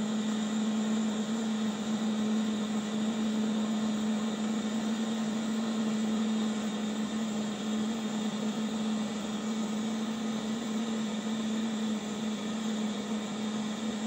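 Blowtorch flame burning steadily, heating a bandsaw blade joint for silver soldering, over a constant low hum.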